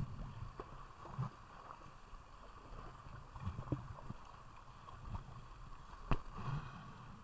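Kayak on moving water: splashing and sloshing of water, with irregular knocks and a sharp knock about six seconds in.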